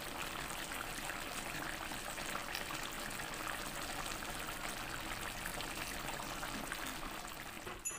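Chicken stew in tomato sauce simmering in a pan: a steady bubbling with fine crackles, easing slightly near the end.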